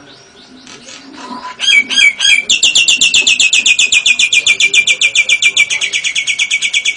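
Cage bird singing: a few varied chirps, then from about two and a half seconds a long, loud run of fast repeated notes, about ten a second, drifting slightly lower in pitch.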